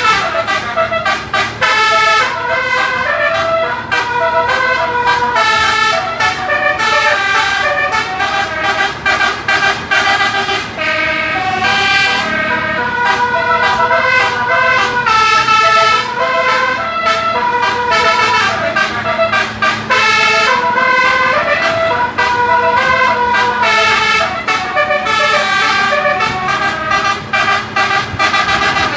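Bus's 18-note telolet horn playing long runs of quick melodies, note after note. A steady low hum runs underneath.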